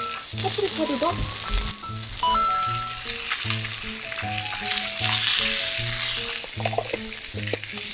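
Salmon fillet sizzling in hot oil in a steel frying pan on a gas camp burner, as king oyster mushroom and yellow bell pepper pieces are added around it with tongs. Background music plays alongside.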